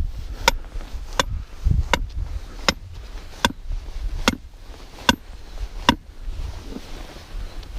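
Hammer driving steel stakes into the ground: eight ringing metal strikes at a steady pace, a little more than one a second, stopping about six seconds in.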